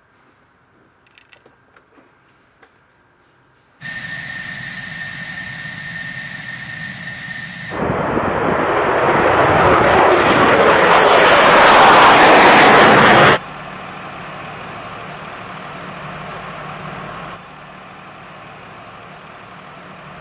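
F-16 Fighting Falcon taking off on afterburner: a loud, broad rushing jet noise that builds for about five seconds, then cuts off abruptly. Before it comes a quieter steady jet hiss with a high whine.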